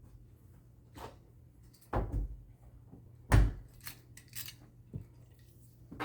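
A few sharp knocks and clicks from objects being handled, the loudest about three and a half seconds in, over a faint low steady hum.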